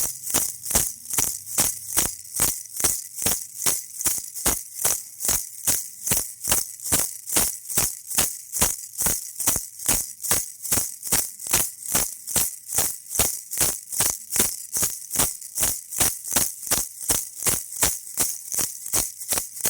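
Baby rattle shaken in a steady rhythm, about two to three shakes a second, each shake a bright, crisp rattle of small beads.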